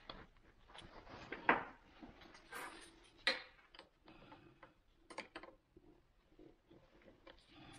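Scattered clicks, taps and rustles of hands fitting a trim/tilt hydraulic hose into a sterndrive gimbal housing. The sharpest clicks come about one and a half and three seconds in.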